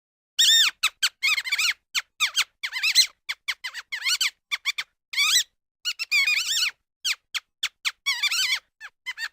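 Mouse squeaking: a rapid, irregular run of short, high-pitched squeaks, each arching up and down in pitch, some bunched into quick chattering clusters.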